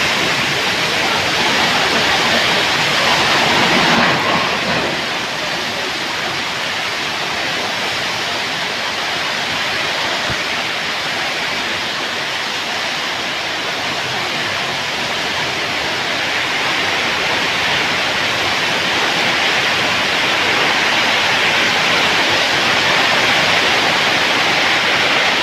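Heavy rain pouring steadily, a dense even hiss that eases slightly about four seconds in.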